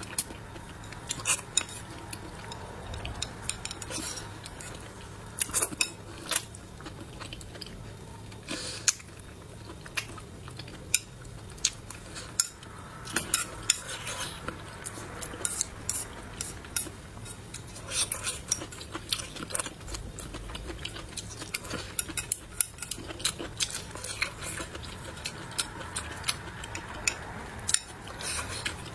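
Chopsticks clicking and scraping against a glazed ceramic bowl, with many sharp irregular clicks, alongside the mouth sounds of chewing green chili peppers and braised pork belly.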